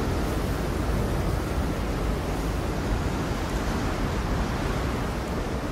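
Strong storm wind blowing, a steady, deep rush of noise.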